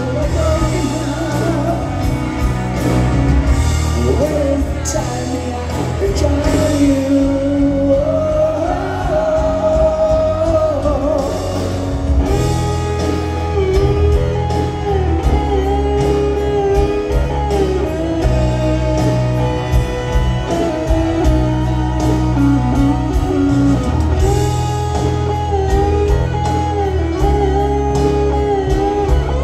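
Live rock band music recorded from the crowd at an outdoor concert: a lead electric guitar plays a melody with sustained, bending notes over the full band.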